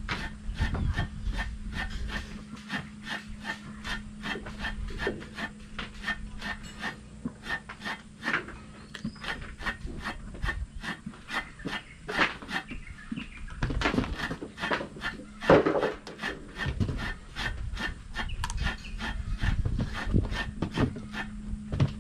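Breadfruit being peeled by scraping its skin with the edge of a corned-beef can, in quick rasping strokes about three a second.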